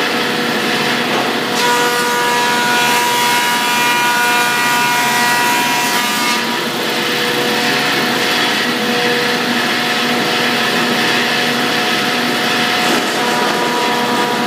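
Wood planer running with boards being fed through it: a steady machine whine, turning louder and higher with a cutting sound from about a second and a half in to about six seconds, and again near the end.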